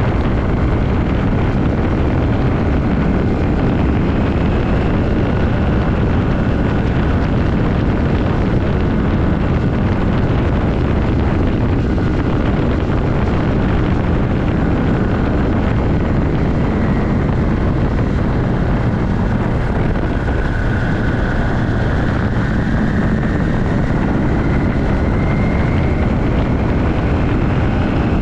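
1982 Yamaha XS400 Maxim's air-cooled parallel-twin engine running under way at road speed, a steady loud drone. Its pitch climbs slowly about twenty seconds in.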